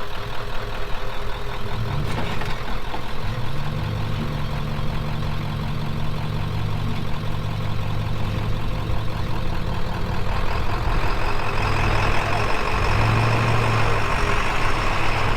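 Truck engine running, its pitch rising about two seconds in as it is revved and then held at a steady, higher speed.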